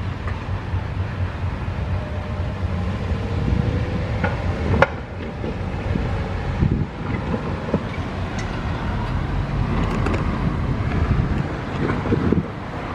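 Cars driving across the railroad crossing as the gate arms rise, over a steady low rumble with wind buffeting the microphone. A sharp click comes about five seconds in.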